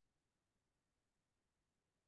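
Near silence: the audio track is essentially empty between the presenter's phrases.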